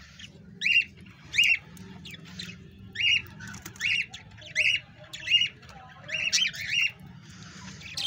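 Rose-ringed parakeet giving a series of short, harsh squawks, about ten of them, roughly one every two-thirds of a second.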